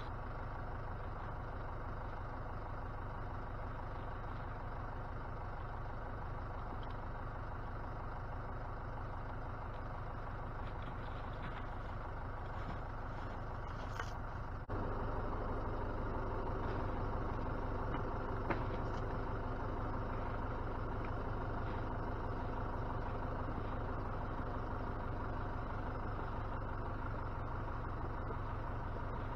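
Tractor engine running steadily, then throttled up about halfway through and held there as it drags a log on a chain.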